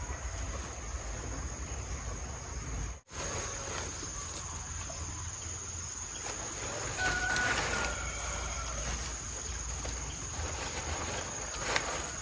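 Steady high-pitched insect chorus over a low outdoor rumble, with rustling of leafy greens being handled and a sharp click near the end.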